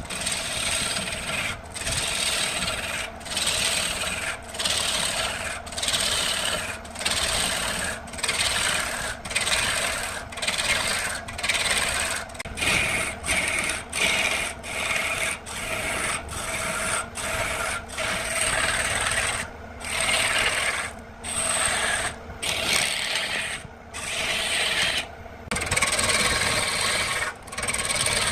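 A lathe gouge cuts into a spinning cedar blank in short repeated passes, about one to two a second, each a loud scraping of shavings being torn off with a brief dip between. A steady hum from the lathe motor runs underneath.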